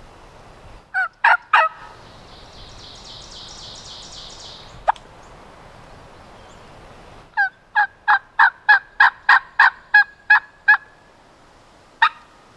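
Turkey yelping: three sharp yelps about a second in, a single note near the middle, then a run of about eleven evenly spaced yelps at roughly three a second, and one last yelp near the end. A faint high rapid trill sounds between the first yelps and the single note.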